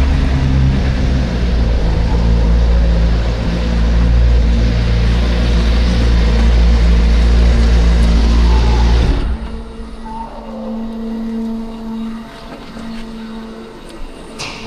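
Suzuki GSR 600's inline-four engine running, heard with rushing noise, then cutting off abruptly about nine seconds in, leaving only a quieter steady hum.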